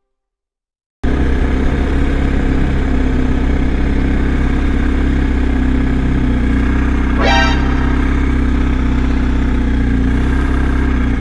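BMW R1250 boxer-twin motorcycle engine running steadily at an even pitch, cutting in abruptly about a second in. A brief high-pitched tone sounds once about seven seconds in.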